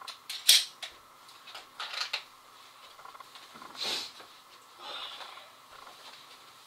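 A pistol being handled in dry-fire practice: one sharp metallic click from its action about half a second in, then a few lighter clicks and a soft rustle of movement.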